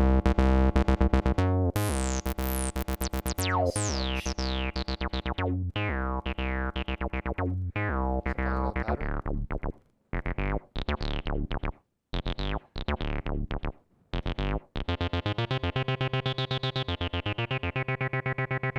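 Roland TB-03 bass synthesizer playing a sequenced square-wave bassline pattern, with envelope modulation sweeping the resonant filter down on each note. There are short breaks near the middle, then a fast, even run of notes as the filter slowly opens and closes near the end.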